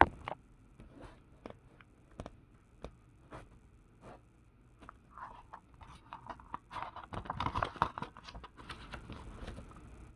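Paper catalogue pages being handled and turned: scattered light ticks and taps, a sharp tap right at the start, and a longer stretch of paper rustling and sliding from about five to nine and a half seconds in.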